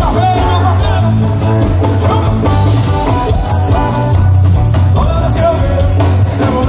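A live forró band playing loud through a PA system: accordion over drum kit, with heavy bass and electric guitar.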